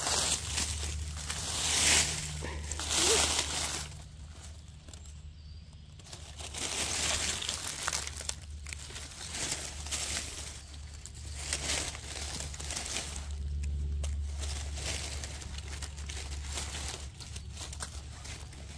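Dry fallen leaves crunching and rustling in irregular bursts as someone moves through the leaf litter, with a quieter spell about four seconds in.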